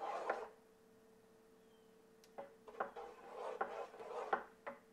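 A spoon stirring and scraping around a pot of thick, hydrating gelatin and water. There is a short bout at the start, a pause of about two seconds, then a run of scrapes and light knocks against the pot.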